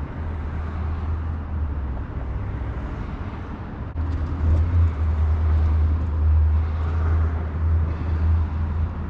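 A steady low rumble under a noisy hiss, louder from about four seconds in.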